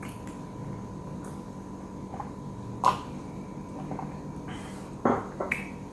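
Eating sounds: a few short, sharp clicks or crunches, the loudest about three seconds in and two more near the end, over a faint steady hum.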